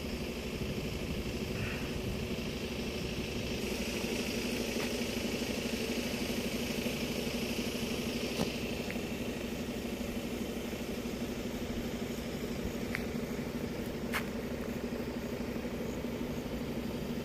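Truck engine running steadily, a low even hum, with a few faint ticks.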